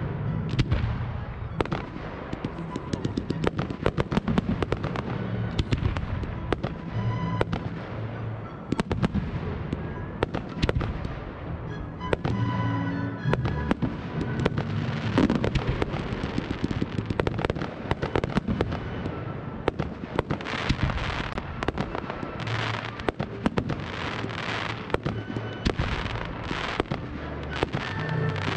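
Aerial fireworks display: shells bursting in frequent bangs and crackles over background music. About two-thirds of the way through the crackling turns into a dense, rapid run.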